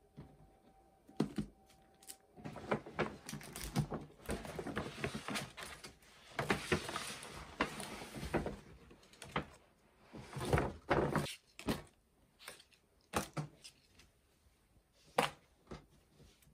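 Rustling and crinkling of a kraft-paper shopping bag and its tissue-paper wrapping while clothes are unpacked. Light knocks and taps of handling on the table come through, with the longest spell of rustling in the first half.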